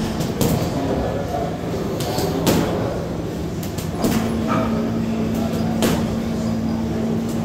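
Gym room noise: several sharp knocks and clanks over a steady low hum, with faint voices in the background.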